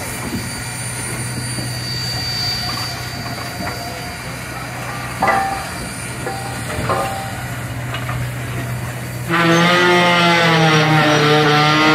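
Reading 2102, a 4-8-4 steam locomotive, blowing one long blast on its chime steam whistle starting about nine seconds in, the pitch wavering slightly. Before the whistle there is a steady low hum with a couple of short clanks.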